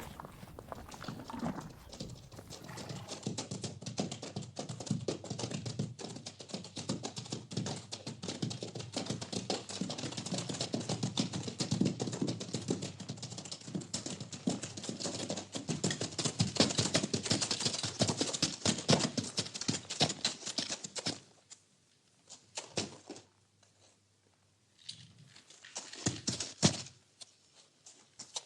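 A horse eating in its stall: a dense, continuous crunching and rustling of feed that drops off sharply about three-quarters of the way in, leaving a few short bursts near the end.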